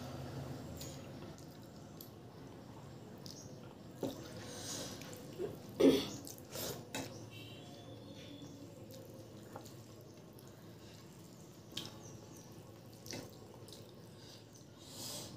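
A hand mixing rice into thin lentil dal on a steel plate: wet sounds of sloshing and squeezing, with scattered clicks and taps of fingers on the plate, the loudest about six seconds in.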